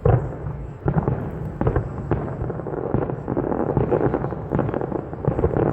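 Aerial fireworks going off: a loud bang right at the start and separate bangs over the next two seconds, then from about three seconds in a rapid, overlapping run of booms and crackle.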